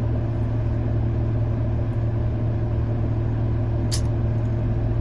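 Vehicle engine idling at standstill, a steady low hum that does not change, with one short click about four seconds in.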